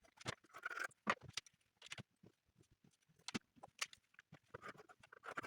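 Faint, irregular light taps and clicks from hands handling materials on a work surface, with no sewing machine running.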